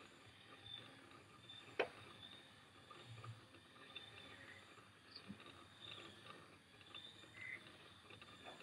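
Light rain falling faintly, a soft patter of scattered drops with one sharper tick of a drop about two seconds in.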